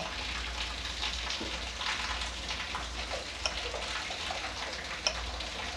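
A hand mixing crumbly roasted gram flour (sattu) with chopped onion and spices in a stainless-steel bowl: steady rustling, with scattered faint clicks against the metal.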